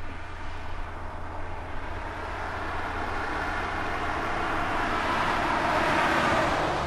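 BMW 730d (E65) with its 3.0-litre straight-six turbodiesel driving past, engine and tyre noise growing steadily louder as it approaches and loudest near the end.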